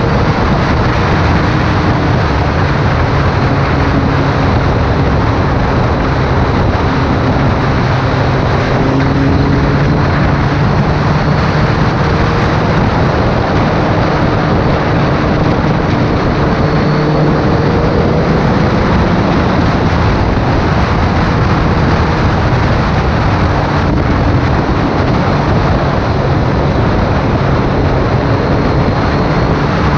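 Wind rushing over the motorcycle's microphone at road speed, loud and steady, over the drone of a BMW K1300S inline-four engine cruising, its pitch drifting gently up and down with the throttle.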